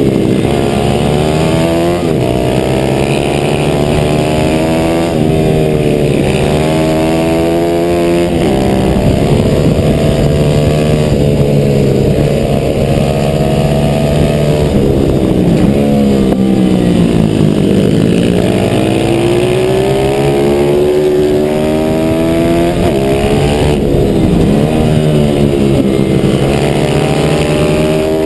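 A stock 140cc single-cylinder four-stroke pit bike engine heard on board while racing. It revs up hard along the straights and drops sharply into each corner, again and again, over a steady rush of wind.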